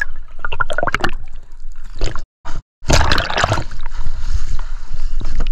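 Water heard through an underwater camera: muffled knocks and gurgling, a brief dropout about two seconds in, then loud splashing and sloshing of water against a fibreglass boat hull as the camera comes up at the waterline.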